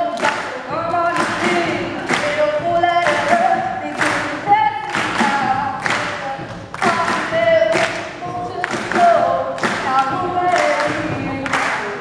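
Live singing with a steady beat about twice a second.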